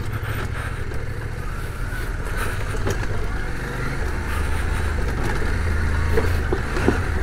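CF Moto 800MT's parallel-twin engine running steadily at low revs on a dirt track, getting a little louder about halfway through.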